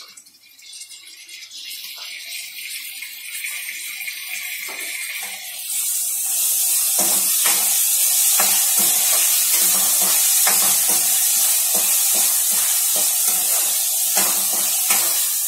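Chopped tomatoes tipped into hot oil with diced potatoes in a steel kadhai: the sizzling builds and grows much louder about six seconds in. From about seven seconds in, a steel spoon stirs and scrapes against the pan about twice a second.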